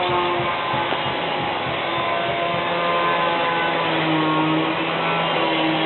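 Background music: a series of held notes changing pitch every second or so, over a steady rushing noise.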